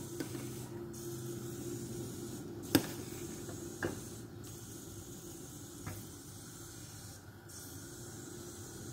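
Steady hiss from a steel pot of flour dumplings simmering in milk on the stove. A metal ladle clinks sharply against the pot about three seconds in, with a lighter knock a second later.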